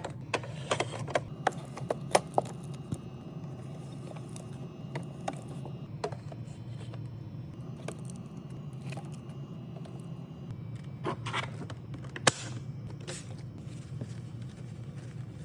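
Drinks and snacks being handled and set into a mini fridge: a quick run of clicks and clinks, then sparser taps, with a louder knock about twelve seconds in, over a steady low hum.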